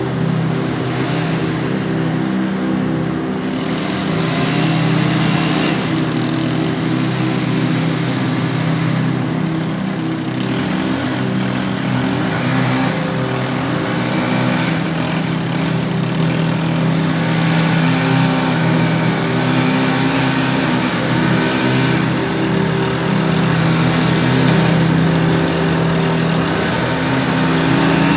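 Small petrol engines of lawn-mowing machines running steadily, their pitch wavering slightly as they are worked across the grass.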